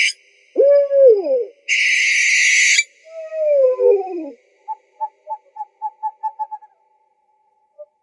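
Owl calls: a falling hoot, a loud harsh hissing screech of about a second, a second falling hoot, then a run of short, quieter hoots that speed up.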